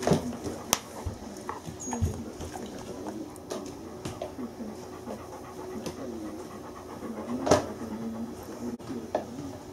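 Bernese mountain dog panting close by, with a few sharp clicks, the loudest about seven and a half seconds in.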